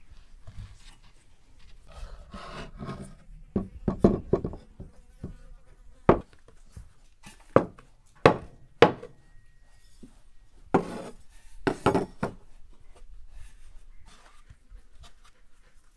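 Irregular knocks and scraping, about a dozen sharp knocks bunched in the middle stretch, some in quick pairs.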